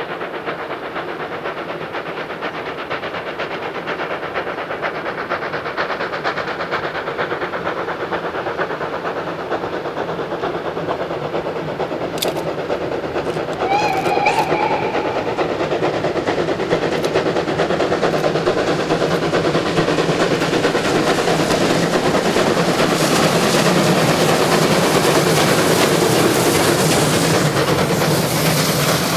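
Steam train working hard up a grade, its exhaust and running noise growing steadily louder as it comes nearer. About halfway through there is a short, wavering whistle.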